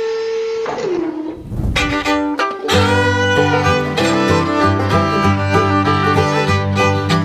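Background music: a held tone and a short sweep lead into string music with violins over a steady bass line, which comes in about three seconds in.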